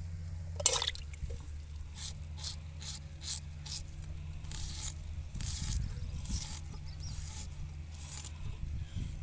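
Red onion being cut against a curved iron blade fixed on a wooden board: a run of short, crisp cuts, two or three a second, with a sharper click about a second in. A steady low hum lies underneath.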